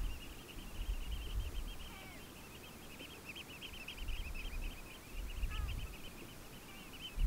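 Birds calling: a fast, unbroken chatter of short high piping notes, with a couple of separate calls that slide down in pitch, over a low wind rumble on the microphone that rises and falls.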